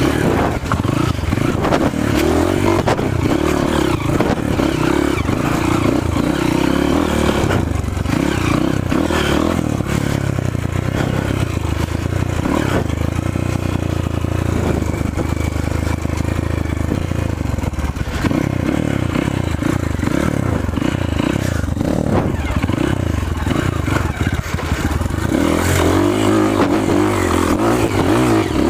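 Off-road motorcycle engine running continuously while being ridden, its pitch shifting up and down with the throttle and getting somewhat louder near the end.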